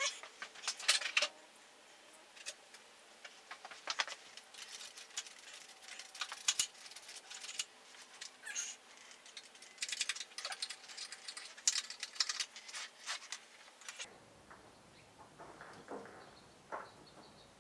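Irregular light clicks and scrapes of hand work on a motorcycle's drive chain and sprocket area.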